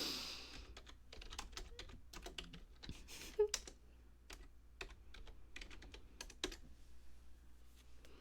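Faint typing on a computer keyboard: irregular keystroke clicks, one a little louder about three and a half seconds in.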